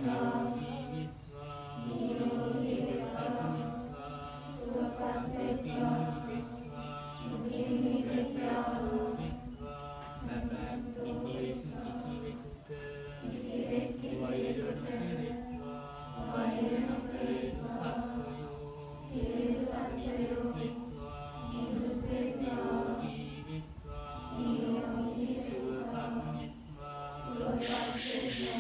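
Buddhist chanting in Pali: a slow, sing-song recitation that rises and falls in phrases recurring about every two seconds.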